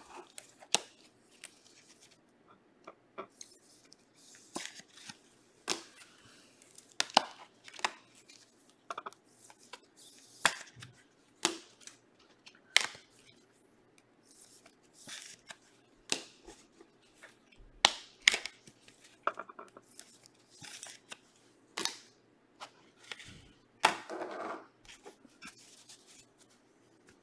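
Trading card packs being opened and cards handled: irregular sharp clicks and short bursts of ripping and crinkling wrapper, with a longer tear near the end.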